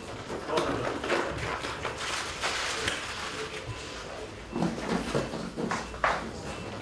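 Surgical gowns and gloves rustling as surgeons are gowned and gloved, with irregular knocks and a sharp snap about six seconds in.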